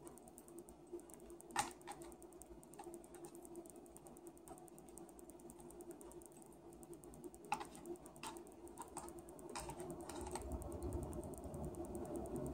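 Metal fork clicking and scraping against a plastic takeout container during eating, in scattered sharp clicks: a few in the first seconds and a cluster in the second half.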